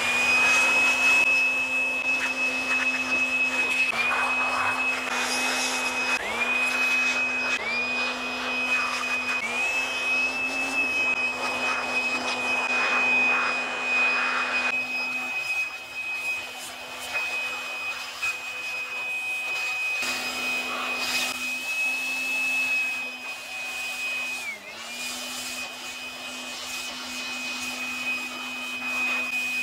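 Handheld electric air blower running with a steady high motor whine and rushing air as it blows water off a wet motorcycle. Several times the whine dips briefly in pitch, then climbs back to full speed.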